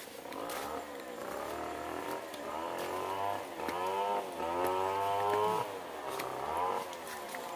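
Motorcycle engine revving up and easing off over and over as it is ridden, its pitch climbing for about a second and then dropping back, five or six times.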